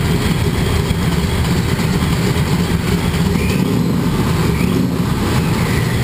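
Mustang drag car's engine idling steadily, loud and low through its exhaust.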